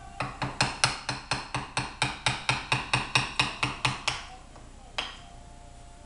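Wooden mallet striking a wood chisel cutting into a wooden gunstock: a quick, even run of taps, about four or five a second, for about four seconds, then one more tap about a second later.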